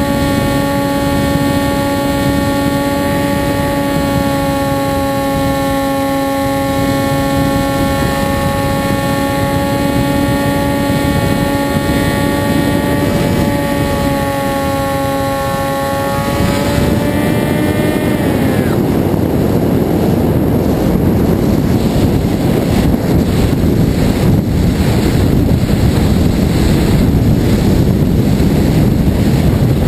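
Onboard a radio-controlled Zagi flying wing: its motor and propeller give a steady whine over wind rushing past the airframe. A little past halfway the whine rises briefly, then winds down and stops, leaving only loud wind noise.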